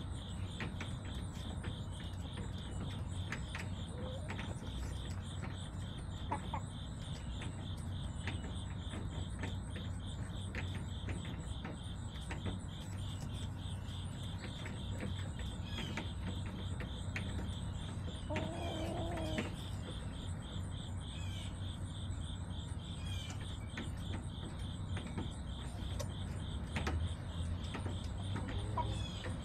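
Crickets chirping in a steady, fast-pulsing trill, over a steady low hum. About two-thirds of the way through, a short pitched call rises briefly above them.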